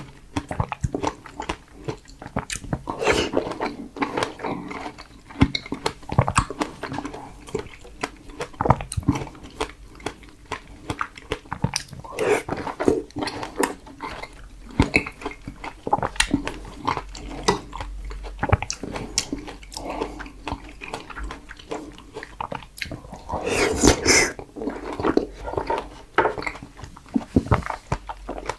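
Close-miked biting and chewing of fresh strawberries, with a dense run of mouth clicks and a few louder bites.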